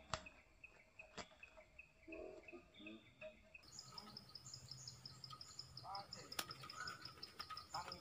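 Faint forest sounds: an insect chirping in a quick, even pulse, a few sharp clicks, and a couple of short soft bird calls.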